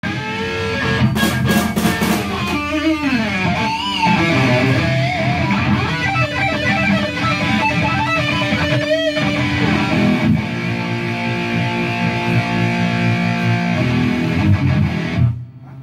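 Distorted electric guitar in a metal rehearsal: a run of bent and wavering notes, then a chord held and ringing for several seconds that cuts off suddenly near the end.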